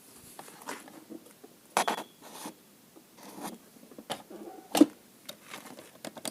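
Scattered handling noises: short rustles and light clicks, with one sharp click a little over two thirds of the way in.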